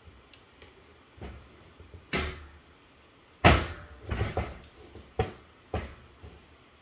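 Handling knocks and clatters as an Eastern Wood Outdoors Ultimate One Stick climbing stick is picked up, turned and bumped against a plywood workbench: a scattered string of knocks, the loudest about three and a half seconds in.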